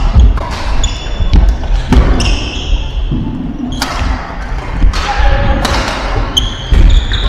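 Badminton doubles rally: several sharp racket strikes on the shuttlecock, short high squeaks of court shoes on the wooden floor, and thudding footfalls, echoing in the hall.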